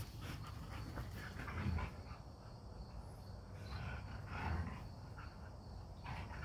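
Two dogs at play, making a few short, soft vocal sounds about one and a half and four seconds in.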